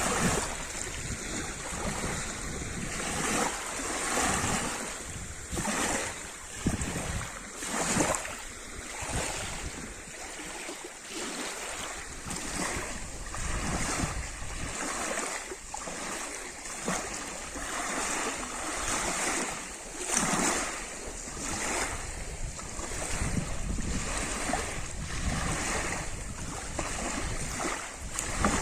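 Lake water lapping and splashing against the shore in small, irregular surges, with a low wind rumble on the microphone.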